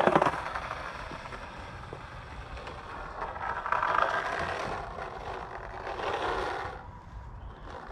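Riderless skateboard on 60mm urethane wheels rolling on smooth concrete across a bowl and up the far wall: a steady rolling rumble that swells twice and fades out about seven seconds in.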